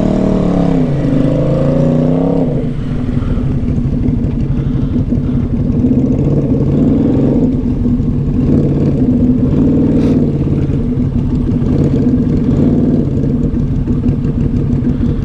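Can-Am Outlander 700 ATV engine revving up and down for the first couple of seconds, then running lower and fairly steady at part throttle.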